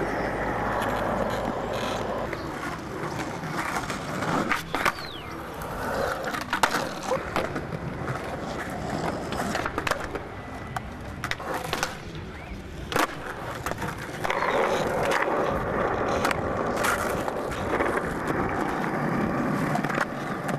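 Skateboard wheels rolling over concrete, broken by several sharp clacks of the board striking the ground and ledges.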